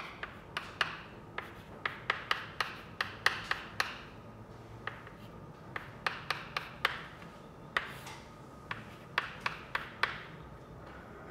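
Chalk writing on a blackboard: irregular sharp taps of the chalk striking the board, mixed with short scratchy strokes, coming in quick clusters with brief pauses between.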